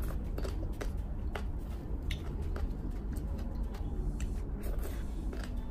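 Close-up wet eating sounds: chewing and lip-smacking on Padang-sauce seafood, with scattered sharp wet clicks a few times a second over a steady low hum.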